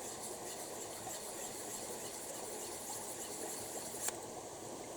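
Steady rushing hiss of a nearby creek, with a single sharp click about four seconds in.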